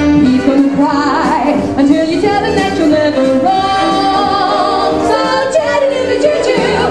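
Music with singing: a sung melody over accompaniment.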